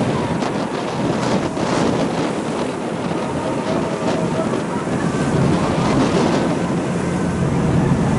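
Turbulent tidal whirlpool water rushing and splashing against the side of a sightseeing boat, with wind buffeting the microphone and the boat's engine humming steadily underneath.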